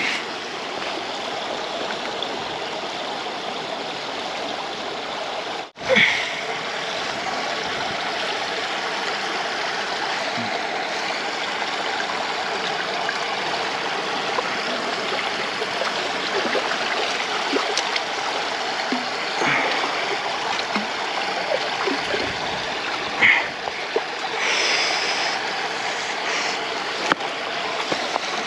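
Steady rushing of river water pouring over a low concrete weir, with a few short splashes in the second half.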